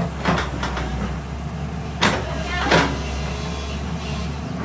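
JCB tracked excavator's diesel engine running steadily while it digs, with a few short, sharp sounds over it, the loudest about two seconds in and again just before three seconds.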